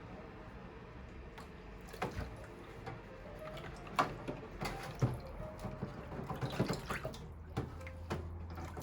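Running water with scattered knocks and clinks of hard parts being handled, typical of rinsing coffee machine parts at a sink.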